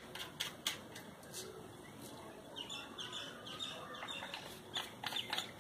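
Scattered light clicks and taps of hard plastic being handled as the nose cap is unscrewed from a mini rotary grinder whose motor is off, with short high chirps through the middle.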